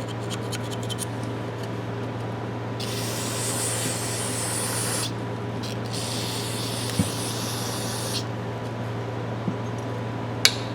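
Two hissing sprays from an aerosol can into an adjustable wrench being cleaned, each lasting about two seconds, followed by a few small clicks of the metal being handled and a sharp click near the end. A steady low hum runs underneath.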